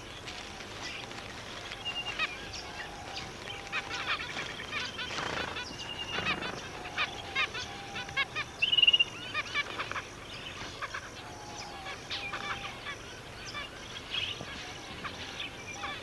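Zebra finches calling: a string of short calls and chirps, with a louder rapid buzzy call about nine seconds in.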